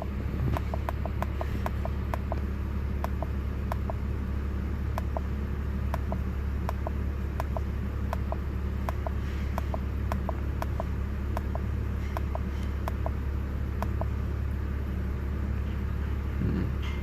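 Steady low rumble of a BMW 330xi's inline-six engine idling, with light, irregular ticks over it.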